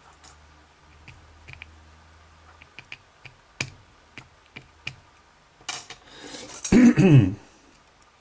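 Small sharp metallic clicks and taps, about a dozen spread over the first five seconds, as brass lock pins are knocked out of a pin-tumbler cylinder. Near the end comes a short rustle, then a brief wordless voiced sound from the man.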